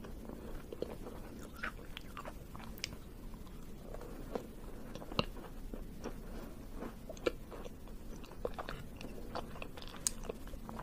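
Close-miked chewing of a chocolate-coated ice cream treat: wet mouth sounds with many small irregular clicks and crackles.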